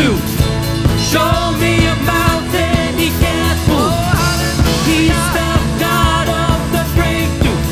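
Live worship band playing an upbeat rock-style song, with a singer's voice over a steady beat.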